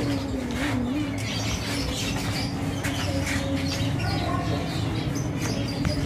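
Many small caged birds chirping in short, scattered high notes, over a steady low hum.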